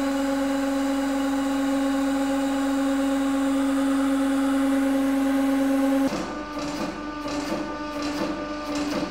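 Hydraulic press pump running with a steady low hum as it builds pressure on a giant steel nut. About six seconds in the sound abruptly drops in level and turns uneven and fluttering.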